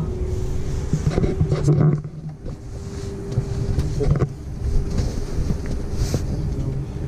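Airbus A380 cabin noise on the ground after landing: a steady low rumble with a steady hum, with a few short rustles and a knock, about a second in and again about four seconds in, from the camera being handled around the seat.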